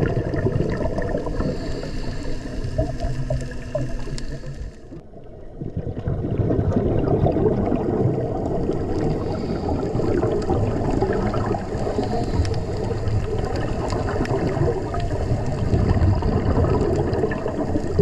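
Muffled underwater noise with bubbling and gurgling from scuba divers' exhaled air.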